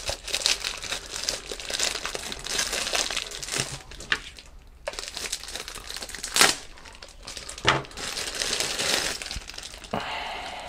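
Thin clear plastic wrapping crinkling and crackling as hands pull it off a small boxed meter, with two louder sharp crackles partway through.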